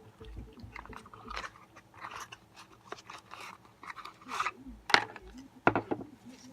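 Packaging of a pocket knife being opened by hand: irregular rustling, crinkling and light clicks, with the sharpest snaps about five seconds in and shortly after.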